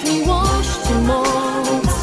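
Polish Christmas pop song playing: a held melody note over a steady bass and drum beat.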